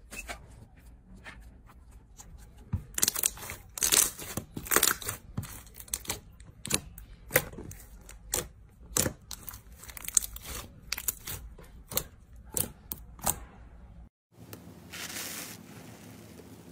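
Hands squishing and stretching a clear glitter slime, with a long run of sharp wet pops and clicks as trapped air bursts. After a short break, a brief soft crackle as a hand presses into a tray of bubbly blue slime.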